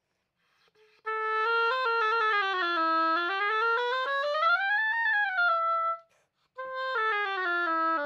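Oboe played on a freshly clipped cane reed: a phrase of stepwise notes with a smooth rise and fall in pitch in the middle, a short break, then a second falling run of notes. The player hears the tone as still wanting to spread a little on certain notes, most on the C.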